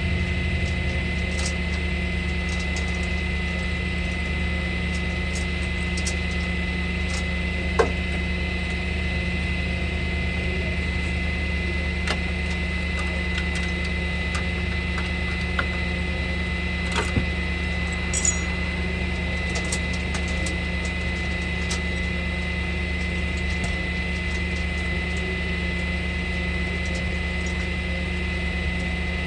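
Tow truck engine idling steadily under a thin, steady high tone, with scattered metallic clicks and clinks of chain and tie-down hardware being fastened at the wheel lift. A sharp knock comes about eight seconds in, and a few more clinks follow a little past halfway.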